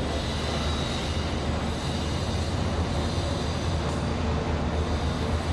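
Steady low rumble of construction-site machinery, even and unbroken with no distinct knocks or changes.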